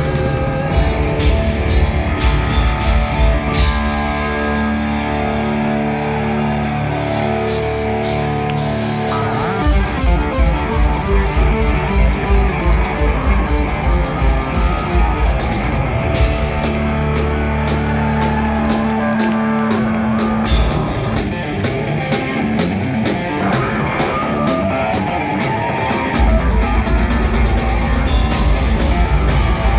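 Live hard-rock power trio of electric guitar, electric bass and drum kit playing loudly, recorded from the crowd in a concert hall. The low end swells near the end.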